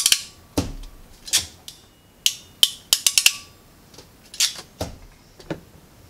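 Hand wire crimper squeezing crimp connectors onto wire ends: an irregular run of about a dozen sharp metallic clicks and snaps, several in quick succession in the middle.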